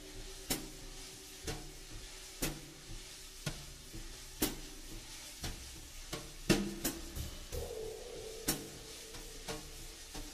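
Background music: a sparse drum beat, one hit about every second, over soft held low notes.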